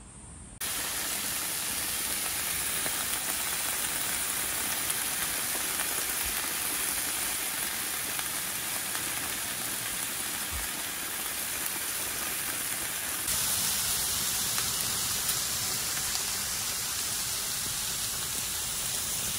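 Pork belly slices sizzling on a hot griddle pan, a steady dense hiss. About two-thirds through it switches abruptly to a slightly louder, brighter hiss.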